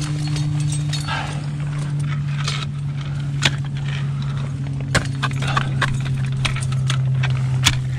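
Ice tool picks and crampon points striking ice and rock in sharp, irregular knocks, with climbing gear clinking, over a steady low hum.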